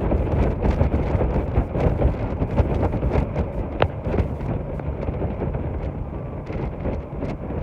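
Wind buffeting the microphone on a moving boat, a heavy low rumble, with the rush of the boat's motor and water beneath it. A short sharp click about four seconds in.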